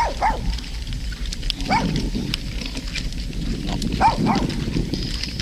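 A dog barking in short bursts, about five barks in three groups, the last pair the loudest.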